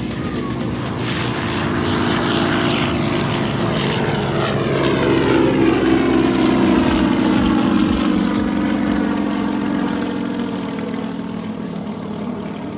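Propeller airplane's engine passing by: the drone swells to its loudest about halfway through, then fades as its pitch falls.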